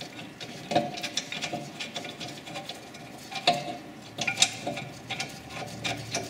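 Scattered metal clicks and light rattles, some with a short metallic ring, as a rear brake caliper carrier is seated on the hub knuckle and its bolts are threaded in by hand.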